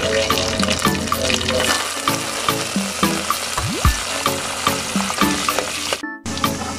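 Hot oil sizzling and crackling in a pot as fresh coriander leaves fry with mustard and cumin seeds. It cuts out briefly near the end.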